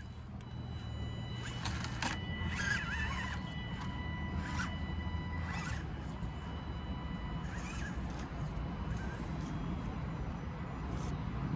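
Element Enduro24 micro RC crawler's small electric motor and gearbox whining as it crawls slowly over rocks, with scattered clicks.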